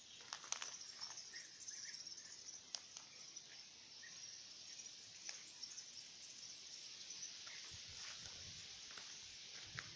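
Faint, steady chorus of insects chirring in farm fields, with a few sharp clicks near the start, about three seconds in and about five seconds in.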